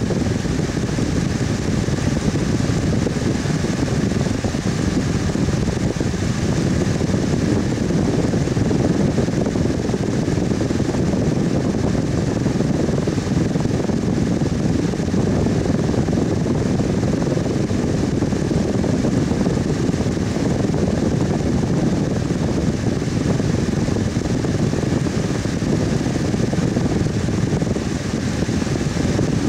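Electric fan running steadily: an unchanging rush of moving air, deepest in the low range, with a faint steady hum above it.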